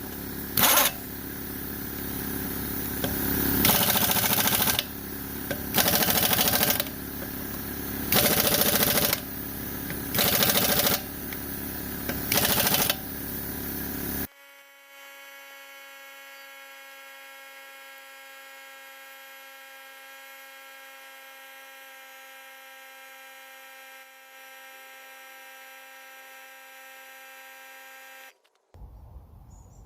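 Impact wrench running truck lug nuts back on in about six short bursts, each about a second long, over a steady mechanical background. About halfway through, this cuts off sharply and a quieter steady hum of several even tones carries on until just before the end.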